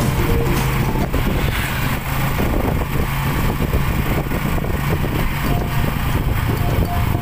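A vehicle engine running steadily on the move, with a continuous rush of wind and road noise, heard from an open-sided passenger seat.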